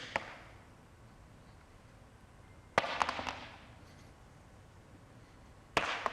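Stones dropped one at a time, each landing with a sharp clatter that echoes in a large room. Two drops about three seconds apart, the first about three seconds in and the second near the end, with the echo of an earlier drop fading at the start.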